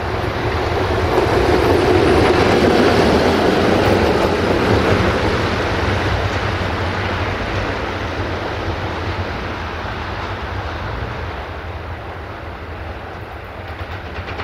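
A train passing close by on the rails, rising to its loudest a couple of seconds in, then slowly fading as it moves away.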